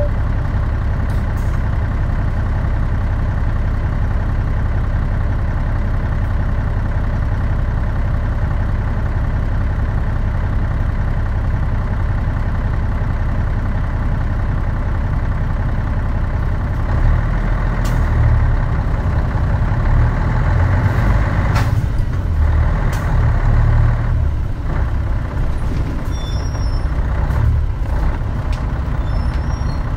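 Running sound of a Mitsubishi Fuso Aero Star (KL-MP37JK) city bus heard from on board: a steady diesel engine drone. About halfway through it grows louder and deeper and wavers, with a few sharp rattles.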